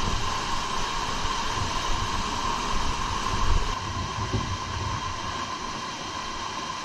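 Steady rushing noise with a low, uneven rumble of wind on the microphone, easing slightly about four seconds in.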